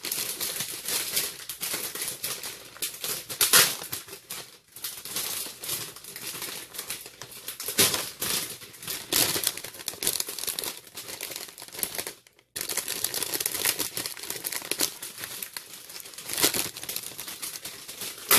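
Clear plastic gift wrapping crinkling and tearing as it is pulled off a box by hand, in irregular bursts of crackling with sharp loud peaks.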